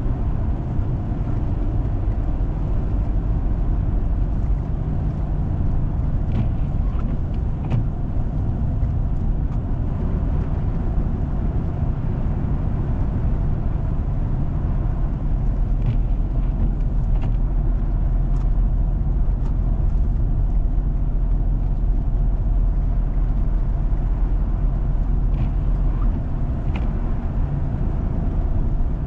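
A four-wheel-drive vehicle driving on a snowy road: steady low rumble of engine and tyres, with a few faint ticks now and then.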